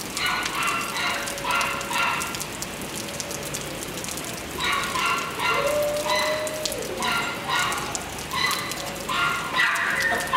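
A dog barking in repeated clusters of short, high-pitched barks, with pauses between the clusters.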